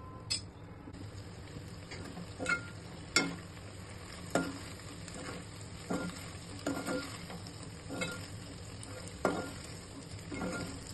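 Spatula stirring okra in a metal pot, scraping and knocking against the pot about ten times at uneven intervals, over a steady sizzle of frying.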